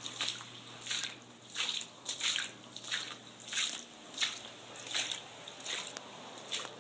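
Rhythmic wet squishing, about one and a half strokes a second, over a steady low hum.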